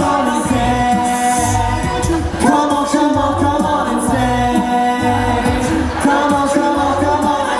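Male a cappella group singing live into microphones: held vocal chords that change every couple of seconds over a deep sung bass line, with a steady beat of short clicks from vocal percussion.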